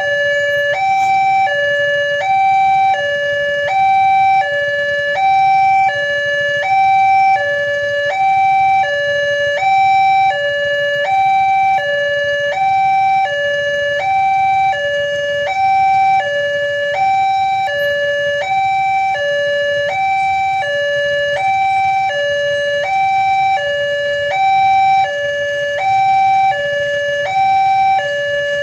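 Railway level-crossing warning alarm sounding: an electronic two-tone signal alternating evenly between a higher and a lower tone about once a second, warning that a train is approaching and the barriers are down.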